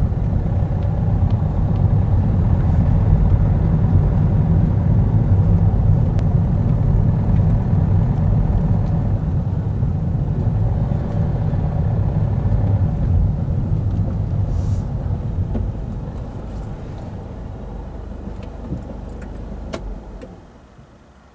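Car driving slowly: a steady low rumble of engine and tyres that eases as the car slows, with a brief click, then falls away sharply near the end as the car comes to a stop.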